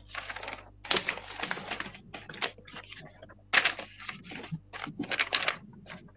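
A picture book being handled close to a computer or phone microphone: irregular rustling and knocking in short, uneven bursts.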